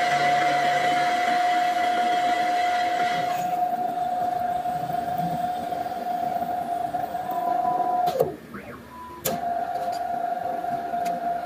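CNC gantry machine's drilling head spindle running with a steady high whine as the drill works into a steel plate. About eight seconds in the whine breaks off for about a second and comes back with a click.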